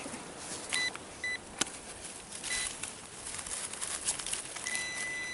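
Metal detector beeping at one pitch: three short beeps in the first three seconds, then a steady tone near the end, the signal of a metal target in the dig hole. A single sharp knock about a second and a half in.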